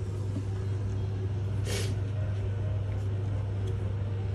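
Brother ScanNCut SDX1200 cutting machine scanning a mat: the feed motor runs with a steady low hum as the rollers draw the mat through. A brief swish comes about two seconds in.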